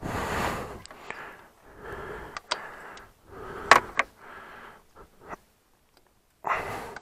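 Light metal clicks and scrapes of a screwdriver loosening the two screws on a Ural motorcycle's ignition breaker-point plate, with heavy breathing in between. The screws are freed so the ignition timing can be set later.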